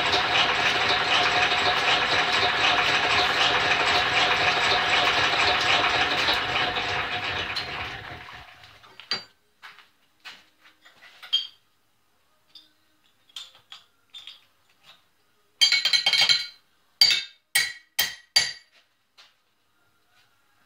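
Motor-driven Champion camel-back drill press running steadily through its belts, then winding down and stopping about eight seconds in. Sharp metal clinks and knocks follow, loudest as a cluster near the end.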